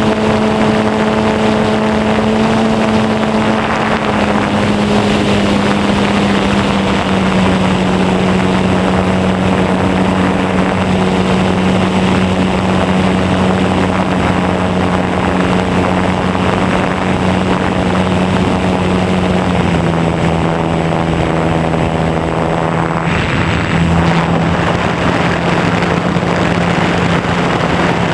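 R/C Super Cub model airplane's motor and propeller droning steadily, heard from a camera on board, with wind rushing past. The pitch eases down in a few small steps, and the high hiss thins briefly about three-quarters of the way through.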